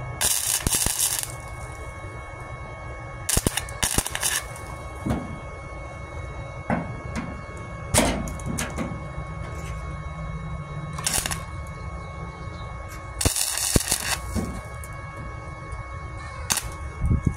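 A flux-core wire-feed welder (Titanium 125 Easy Flux running .030 flux-core wire) is laying spot welds on 1/16-inch sheet steel. The arc crackles in about six short bursts, the longest about a second, with pauses of a few seconds between them.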